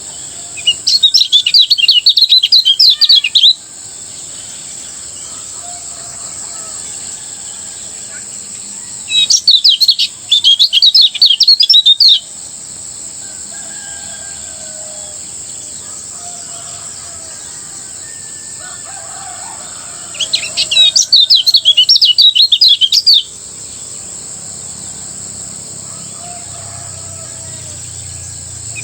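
Kecial kuning (a Lombok white-eye) singing its fast, rattling 'ngejos' song in three bursts of rapid high chirps, each about three seconds long and roughly ten seconds apart. A steady high insect drone runs underneath.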